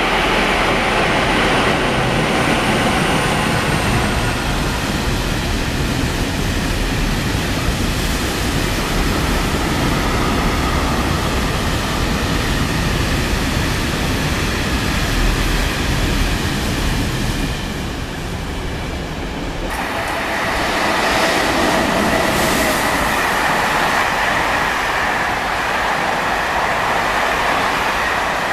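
A freight train runs through the station, a long continuous rumble of wheels and wagons on the track. About twenty seconds in it cuts suddenly to a passenger train of grey coaches passing, with a steady high whine over the wheel noise.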